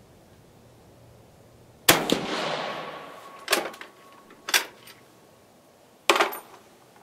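A single shot from a Carcano M38 short rifle in 6.5mm, firing a cast-bullet load, about two seconds in, with a long echoing tail. About a second and a half later comes one click and then a second one: the bolt worked open and closed. About six seconds in there is another sharp, loud clack with a shorter tail.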